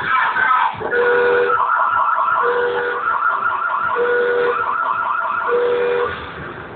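Warbling siren sound, repeating quickly, with a low two-note tone sounding four times about every second and a half; it fades near the end.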